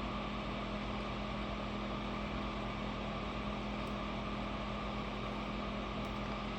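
Steady whir and electrical hum of fan-forced space heaters running off a portable power station under load.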